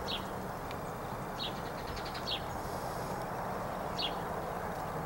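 Short high chirps from a small bird, four in a few seconds, each falling slightly in pitch, over a steady low background noise.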